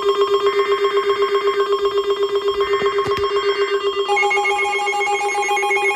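Electronic emergency alert alarm sounding for a severe thunderstorm warning: a loud, rapidly pulsing tone, about eight or nine pulses a second, with a second, higher tone joining about four seconds in.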